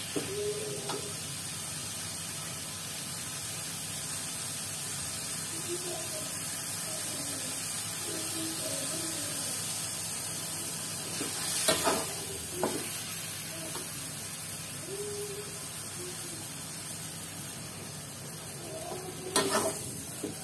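Shrimp and potato sambal sizzling steadily in an aluminium wok. A metal spatula scrapes and knocks against the pan a few times, about twelve seconds in and again near the end.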